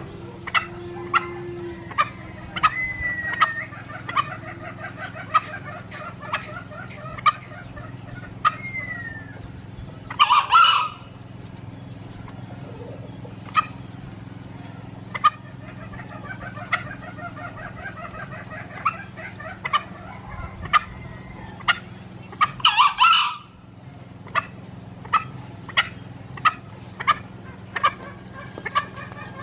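Two short, shrill crows of a green junglefowl rooster, about 10 seconds in and again about 23 seconds in. Underneath are a steady low hum, many sharp clicks and faint bird chatter.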